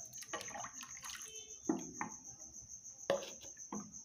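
Homemade lemon disinfectant splashing and dripping as a plastic container is rinsed and emptied into a plastic mixing bowl, with a few sharp knocks about a second apart. A cricket trills steadily behind it.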